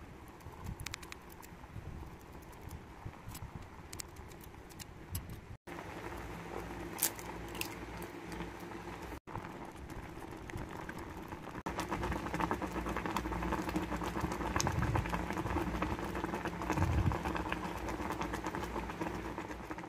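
Curry instant noodles boiling in a small electric cooker pot, with a steady bubbling and crackling that grows louder about twelve seconds in. A few sharp clicks of a utensil against the pot come in the first half.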